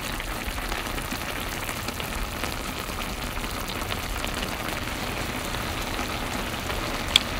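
Pot of spicy tteokbokki in red sauce bubbling at a boil: a steady crackling sizzle with scattered small pops, and one sharper pop near the end.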